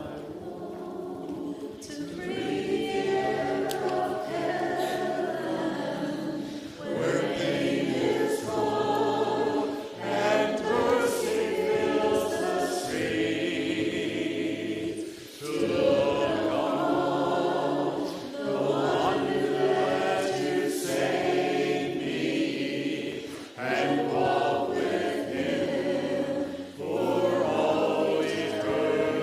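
Many voices singing a worship song together, in long phrases with brief breaks between them.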